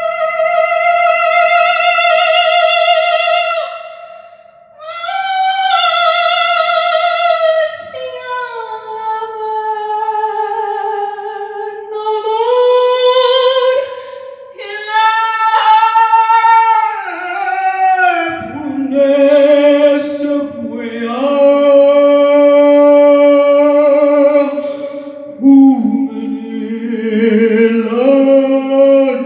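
Unaccompanied singing: a high voice holds long notes with vibrato and glides between pitches, with short breaths between phrases. About two-thirds of the way in, a lower voice sings along with it.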